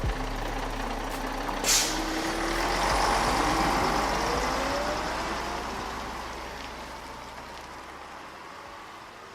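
A heavy road vehicle: a short, sharp air-brake hiss about two seconds in, then a rising whine as it pulls away over a low rumble, the whole sound slowly fading out.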